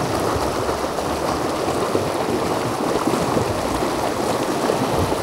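Rushing creek water running over rocks in a shallow riffle: a steady rush.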